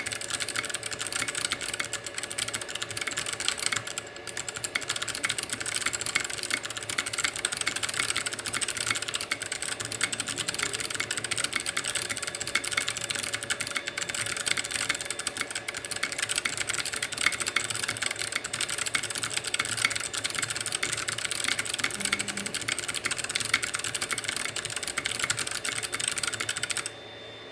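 Fast, continuous typing on a mechanical keyboard with Kailh Box Jade clicky switches in a 3D-printed FC660-layout case: a dense stream of sharp, crisp key clicks. The typing dips briefly about four seconds in and stops suddenly near the end.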